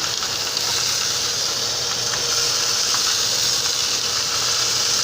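Steaks and freshly added onions sizzling steadily in hot canola oil in a frying pan.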